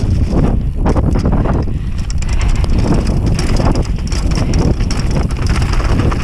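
Wind buffeting an action camera's microphone on a mountain bike riding fast down a dirt trail, with a steady rumble from the tyres and frequent knocks and rattles from the bike over bumps.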